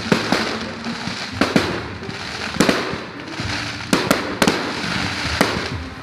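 Fireworks going off: about ten sharp bangs at irregular intervals over a continuous noisy hiss.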